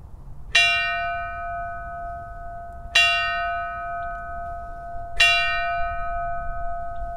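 A bell struck three times, about two and a half seconds apart. Each strike rings on in a clear, lingering tone that overlaps the next, as a memorial toll for a fallen deputy.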